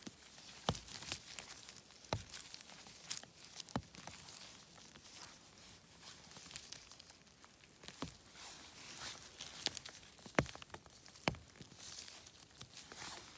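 Rustling and crackling of forest-floor litter and rain-jacket fabric as small mushrooms are picked by a gloved hand, with scattered sharp snaps and ticks.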